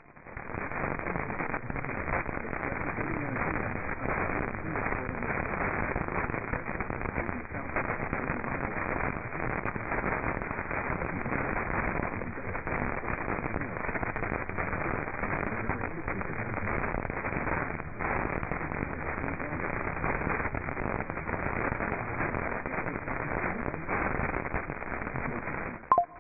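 Radio static: a steady hiss with faint scattered crackles coming through a radio receiver, with no station audio.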